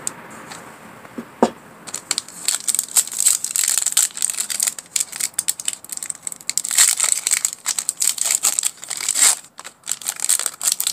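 Foil wrapper of a 2017-18 Panini Revolution basketball card pack crinkling and tearing as it is opened by hand, a dense crackle starting about two seconds in, with a brief lull near the end.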